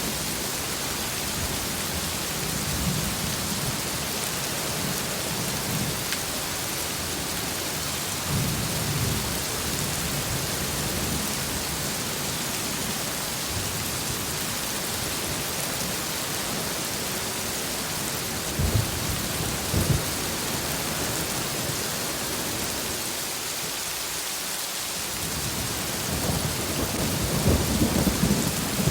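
Heavy rain pouring steadily, with thunder rumbling low at times. Two sharp thunder cracks come about two-thirds of the way in, and a longer rolling rumble builds near the end.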